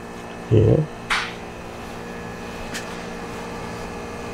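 Steady hum of commercial bakery equipment, with a few faint steady tones in it. A short soft rustle comes about a second in, as the linen couche on the tray is handled.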